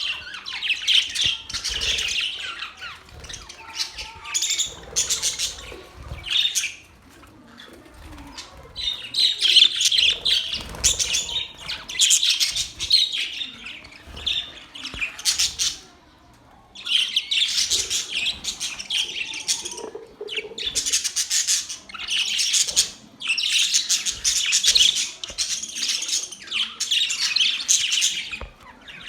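Small pet birds chirping and twittering in high-pitched bursts of several seconds, with brief lulls about seven and sixteen seconds in.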